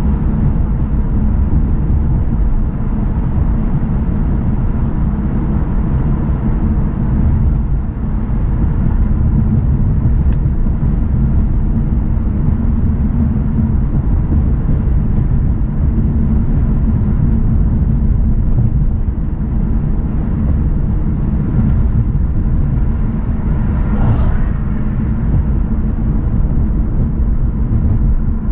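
Car driving on city streets: a steady low rumble of road and engine noise, with a brief higher-pitched whine near the end.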